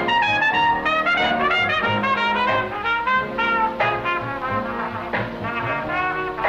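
Jazz band music, with trumpet and trombone carrying a fast-moving melody.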